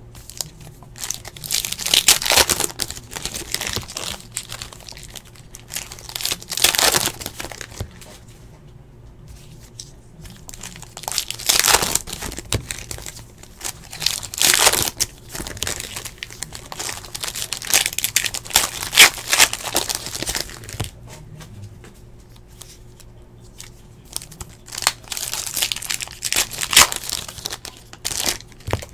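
Foil wrappers of Panini Hoops basketball card packs being torn open and crinkled by hand, in repeated irregular bursts of crackling.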